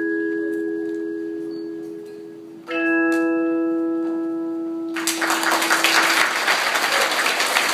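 Tone chimes ringing: a held chord fades away, then the closing chord is struck about two and a half seconds in and left to ring out. Applause breaks out about five seconds in, over the dying chord.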